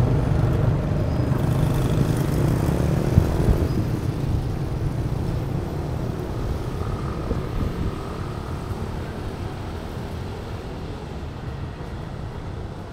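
Motor vehicle traffic: a low engine and road rumble that fades steadily over several seconds, as of a vehicle pulling away.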